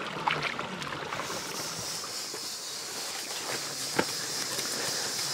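Water trickling in a shallow muddy stream around bare feet, which about a second in gives way to a steady high hiss with a single sharp knock near the end.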